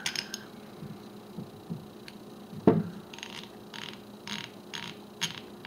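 Freshly cleaned and lubricated Proto 5449 half-inch drive ratchet worked by hand, its pawl clicking over the gear teeth in short runs about twice a second through the second half. A single louder knock comes a little before halfway.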